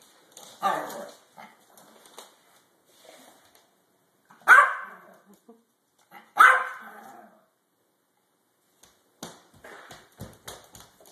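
Small Yorkshire terrier barking three times, a few seconds apart, at its own reflection in a mirror. Near the end come footsteps and knocks on a hardwood floor.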